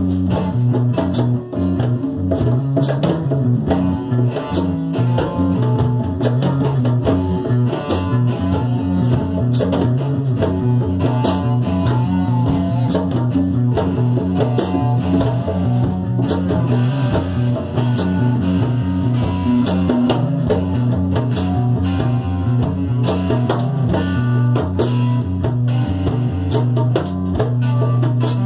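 Instrumental jam of electric guitars with a strong low bass line over hand-played djembe strokes keeping a steady beat.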